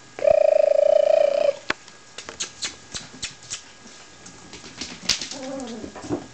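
Puppies playing on a hard floor: claws click and skitter. A loud, steady squeal of just over a second comes near the start, and a short falling whine comes near the end.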